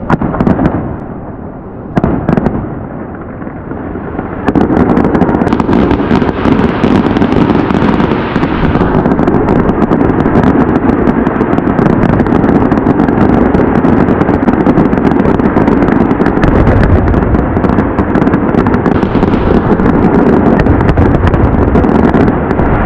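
Fireworks bursting: two single booms in the first couple of seconds, then from about four seconds in a dense, continuous barrage of bangs and rapid crackling.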